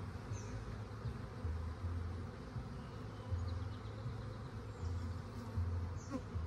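Honeybees buzzing around open hives, a steady hum that swells and fades, with a brief falling buzz near the end.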